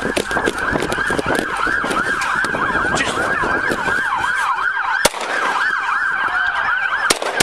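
Police car sirens in a fast rising-and-falling yelp, with sharp cracks cutting through: one about five seconds in and more starting near the end.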